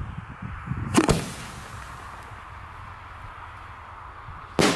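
Homemade aerial firework shell: a sharp bang about a second in as the lift charge fires it out of the mortar, then a second bang near the end as the shell bursts in the sky.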